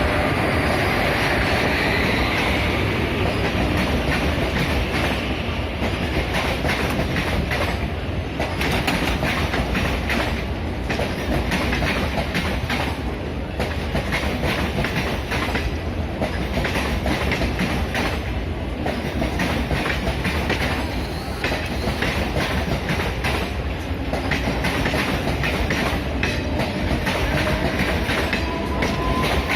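A train running steadily on the rails, its wheels clicking over the rail joints continuously.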